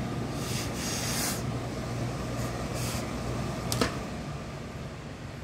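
Hose-fed steam iron giving short hisses of steam as it presses the trousers, twice in the first three seconds, over a steady low hum. A single sharp knock comes near the end.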